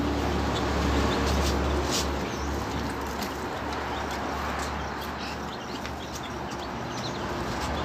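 Farmyard animal sounds with birds chirping in short scattered calls over a steady low rumble.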